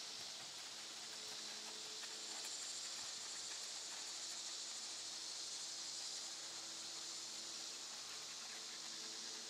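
A steady, high-pitched chorus of summer insects, with a faint steady low hum beneath it.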